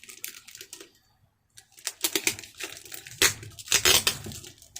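Plastic packaging being crinkled and torn by hand in quick crackling bursts, with a short pause about a second in and louder, denser crackling from about two seconds in.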